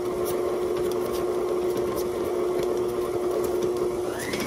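5-quart KitchenAid tilt-head stand mixer running at a steady speed, its motor humming while the flat beater churns thick cookie dough in a ceramic bowl.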